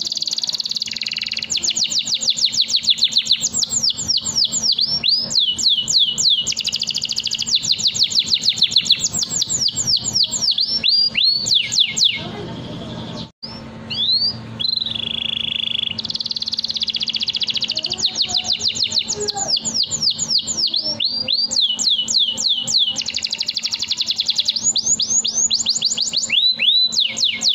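Domestic canary singing a long, continuous song of fast trills, runs of rapidly repeated sweeping whistled notes. About halfway through the song breaks off for a moment, then resumes; a faint steady hum lies underneath.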